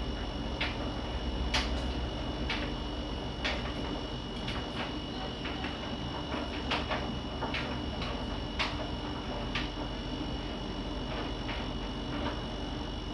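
Siemens iQ300 front-loading washing machine running, with a steady motor hum and irregular light clicks and knocks about once a second as the drum turns.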